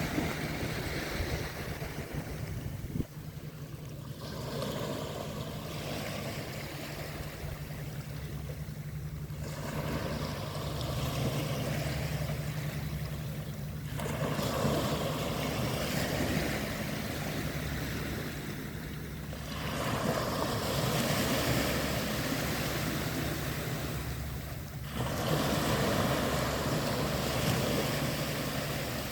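Sea waves washing in and drawing back in repeated swells, about one every five seconds, over a steady low rumble.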